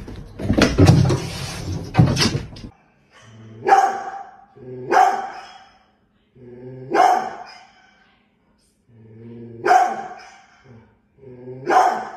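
A short burst of loud noise at the start, then a large dog barking at a cat: about five deep barks, one every one to two seconds.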